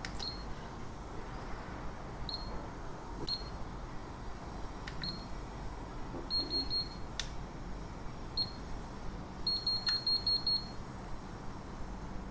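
Firefly 8S action camera beeping: single short high beeps as its buttons are pressed, a quick run of beeps about six seconds in and a longer rapid string near ten seconds, with a few faint button clicks between. The camera is being reset to its default settings and restarting.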